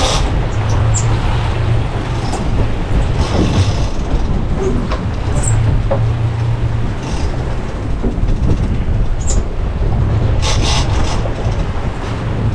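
Fishing boat running, a steady low engine rumble mixed with wind and water noise, with a few short hissing bursts.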